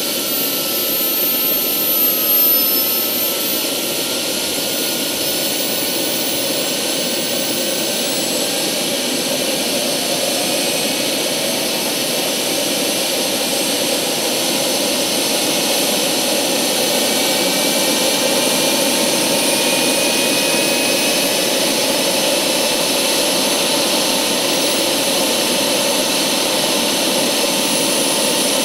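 Vario XLC model helicopter's turbine engine running with the rotor turning on the ground: a steady jet-like rush with thin whines that rise slowly in pitch as it spools up.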